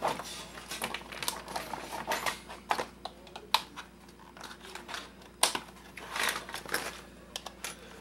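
Plastic hair dryer housing being pried apart with a small screwdriver: irregular clicks, taps and knocks of plastic and metal, with faint creaking between them.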